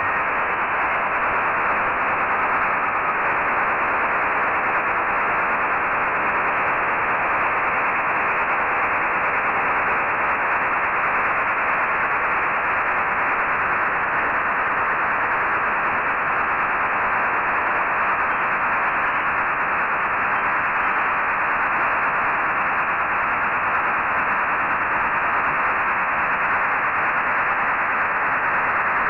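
STANAG 4285 HF serial-tone data signal from a French Navy test transmission, demodulated in upper sideband on a software-defined radio. It is a steady, dense hiss-like rasp with no breaks, with band static beneath it.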